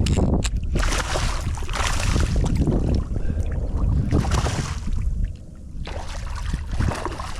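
Wind buffeting the microphone over water splashing around a kayak, with small knocks and clicks; it eases off briefly about five seconds in.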